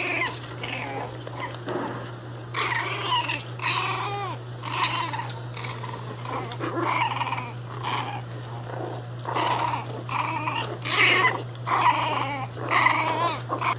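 Angry pinscher dogs barking and growling in short outbursts, about one a second, over a steady low hum.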